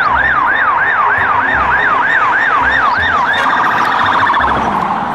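Police car siren in yelp mode, sweeping up and down about three times a second, then switching a little over three seconds in to a much faster warble.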